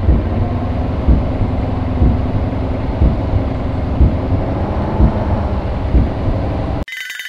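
Yamaha VMAX 1200's V4 engine running steadily above idle, throttle held slightly open so the headlight burns bright for the headlight test, with a low pulse about once a second. Near the end the engine sound cuts off suddenly and a short shimmering chime-like transition effect follows.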